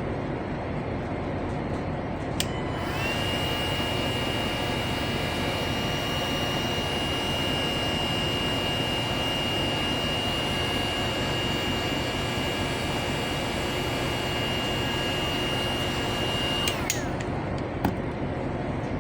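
A small electric power tool's motor whining at a steady high pitch. It clicks on and spins up about two and a half seconds in, then clicks off and winds down a couple of seconds before the end, over a steady background hiss.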